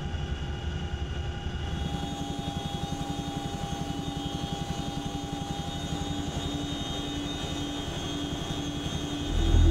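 Boeing CH-47 Chinook tandem-rotor helicopter in flight: fast, even beating of the rotor blades under a steady whine from the turbines and gearboxes. Louder music comes in just before the end.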